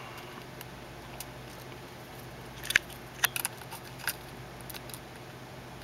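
Small sharp plastic clicks and taps from a Nikon Coolpix S70 compact camera and its lithium-ion battery being handled and fitted into the battery compartment, a cluster of them from about two and a half to four seconds in, over a faint steady low hum.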